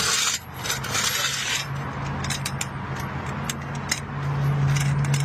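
Metal tools and a car jack clinking and scraping, a scatter of sharp clicks and rattles, while a tyre change gets under way. A steady low hum grows louder about four seconds in.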